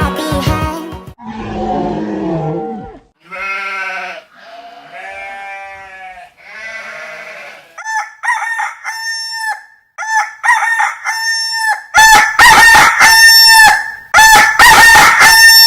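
Song music cuts off about a second in. A few lower drawn-out animal calls follow, then from about eight seconds a rapid string of short, loud calls from farm fowl, growing denser and overlapping near the end.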